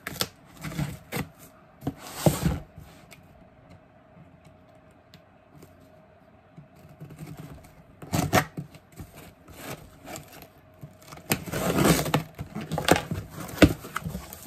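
Box cutter slicing through packing tape on a cardboard shipping box, in short scraping strokes with a quiet pause between, then the cardboard flaps scraped and pulled open, with a couple of sharp cracks near the end.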